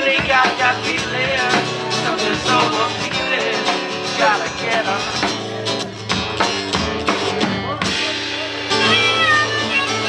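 Live acoustic guitar and drum kit playing a song together, with frequent drum hits and a steady bass line. The low end drops out briefly about eight seconds in.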